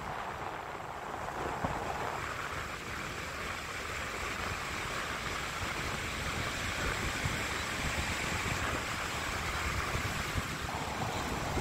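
Strong wind blowing across the microphone: irregular low buffeting over a steady rushing hiss.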